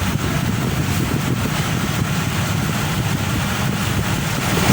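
Toyota V8 engine idling steadily, running on fresh oil with a newly fitted oil filter.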